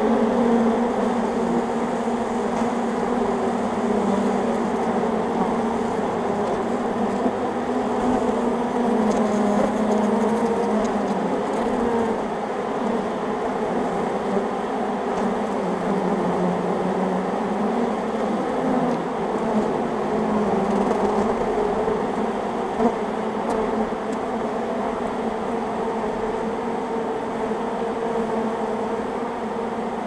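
Honey bee swarm buzzing at close range: a dense, steady hum of many wingbeats that wavers slightly in pitch, as the swarm clusters on and moves into a hive box.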